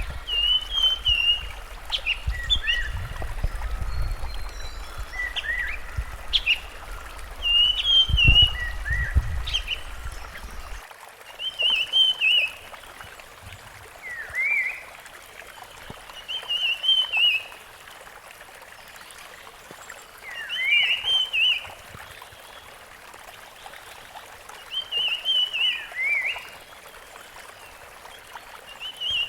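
Rusty-fronted barwing calling: short chirping phrases, each a quick run of high notes, repeated every few seconds. A low rumble underlies the first third and cuts off abruptly.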